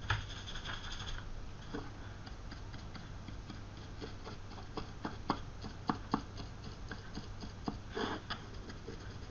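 Stiff paintbrush bristles working over a rough, textured resin base, giving irregular light ticks and scratches, over a faint steady low hum.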